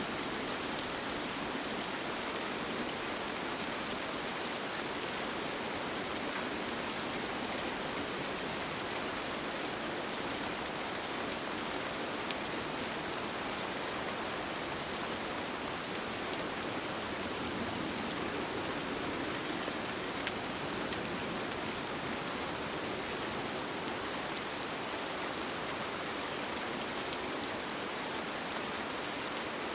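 Steady rain falling on a tent, an even hiss with a few faint drop ticks.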